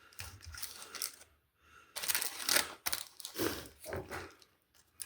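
Clicking and rustling handling noises in several short bursts, as a takeout food container and the potato bites in it are handled.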